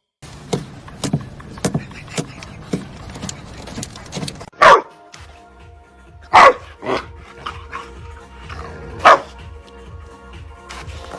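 A dog barking: three loud single barks a couple of seconds apart, with a softer one just after the second, over background music.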